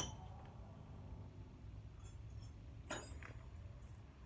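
Faint metallic clinks of hand tools, wrenches and sockets, being handled against the underside of the car, with a sharp click right at the start and another a little before three seconds in.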